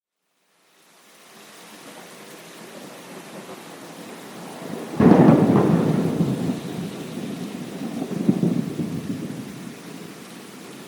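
Steady rain fading in from silence, then a sudden thunderclap about halfway through that rolls on as rumbling thunder, swells again a few seconds later and dies away under the rain.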